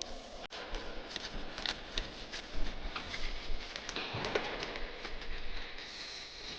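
Bicycle repair work: tools and metal bike parts being handled, giving irregular light clicks and knocks, with a sharper knock about two and a half seconds in.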